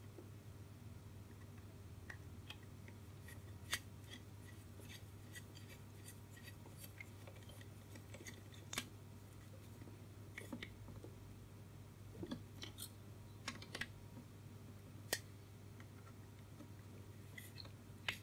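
Small metallic clicks and scrapes of a screwdriver and long-nose pliers tightening the stiff screw and nut of a chassis-mounted connector socket, the screw binding on paint on its thread; the clicks come every second or two over a faint steady low hum.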